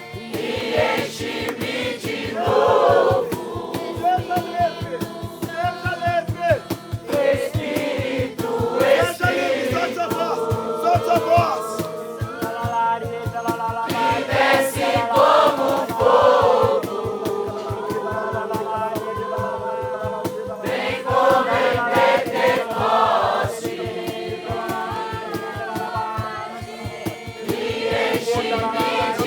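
A group of voices singing a worship song over music with a steady beat.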